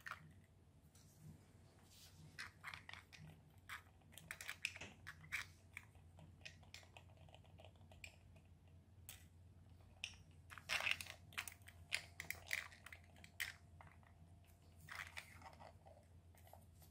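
Faint clicks, creaks and scrapes of 3D-printed plastic puzzle parts being handled and pushed into slots that are too tight, coming in irregular clusters.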